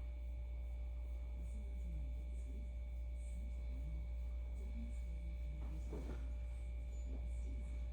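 Steady low electrical hum with a faint, thin high whine above it; nothing louder happens.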